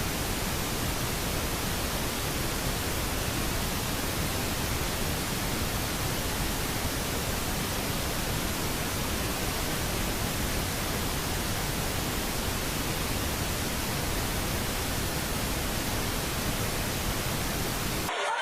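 Steady, even hiss like static, with no rhythm or pitch, cutting off suddenly near the end.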